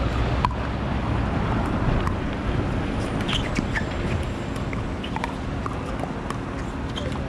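Pickleball rally: sharp, irregular pops of composite paddles hitting the plastic perforated ball, about one every half second to a second, over a steady low rumble.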